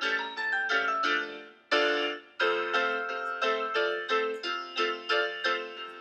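Background piano music: a steady stream of notes, with a brief break just before two seconds in.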